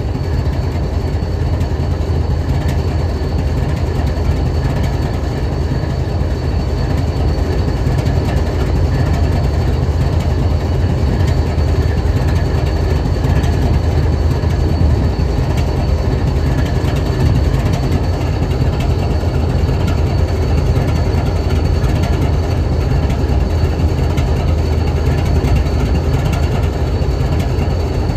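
Diesel-electric freight locomotive BNSF 7876 idling: a steady low engine rumble, with a faint thin high whine held over it.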